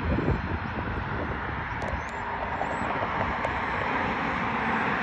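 Jet airliner engines at an airport: a steady rushing roar that grows slightly louder toward the end.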